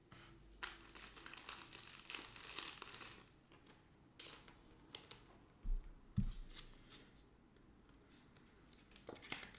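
Crinkling and rustling of thin plastic as trading cards and their packaging are handled, densest for the first few seconds and again briefly near the end, with a few clicks and two soft low thumps around the middle.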